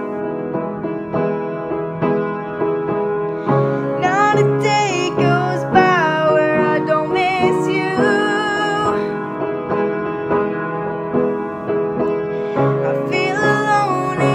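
Upright piano played in a steady chordal accompaniment, with a female voice singing over it: the sung line comes in about four seconds in, drops out after about nine, and returns near the end.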